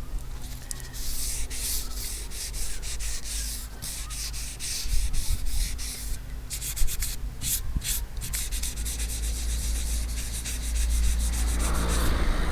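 Wet sanding of car-bonnet primer with P600 wet-and-dry paper on a sanding block, in many quick rubbing strokes, with a low rumble underneath.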